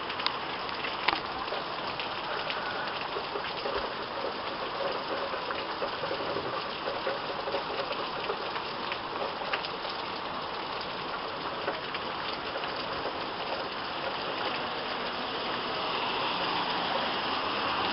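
Heavy downpour: steady rain pouring down and splattering on surfaces, dotted with sharp drop ticks, growing a little louder near the end.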